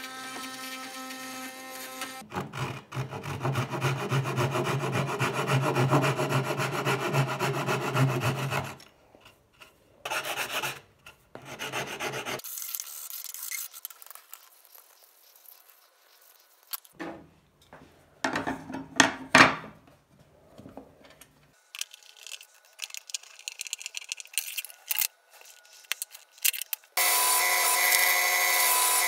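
Hand work on a wooden insert, sawing and rasping strokes on wood, in several short clips, cutting a recess for the saw's riving knife base. Near the end a loud, steady power-tool motor comes in.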